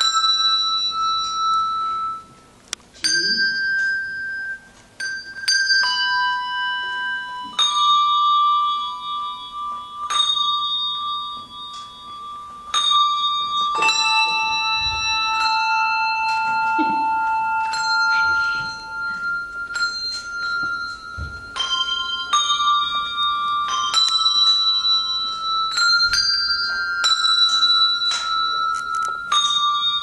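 Handbell choir playing a slow melody on brass handbells: single notes and small chords rung about every one to two seconds, each ringing on and overlapping the next.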